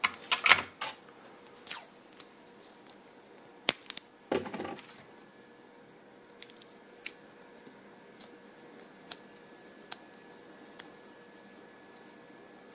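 Electrical tape being torn and wrapped around a twisted wire joint, with the wires handled: a few short tearing and rustling noises in the first five seconds, then only faint scattered clicks.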